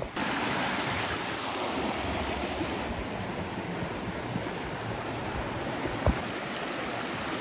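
Creek water flowing steadily, a close, even rush, with one short knock about six seconds in.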